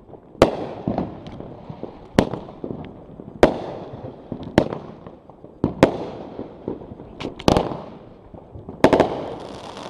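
A 'Cascade of Color' consumer firework cake firing its shots: about seven sharp bangs, roughly one every second or so, each trailing off in a brief rumble and hiss.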